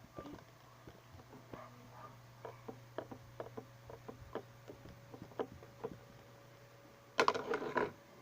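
Homemade glue-and-borax slime being worked by hand: scattered small sticky clicks over a steady low hum, then a louder burst of noise about seven seconds in.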